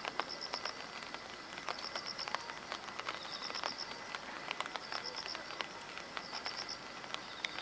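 Outdoor ambience with a high chirping call, a quick group of notes repeating about every one and a half seconds, over a steady noise bed with scattered faint clicks.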